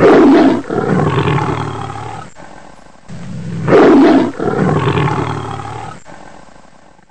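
Tiger roar sound effect, the same recording played twice in a row about three seconds apart. Each begins with a loud roar, breaks briefly, then trails into a long growling roar that fades away.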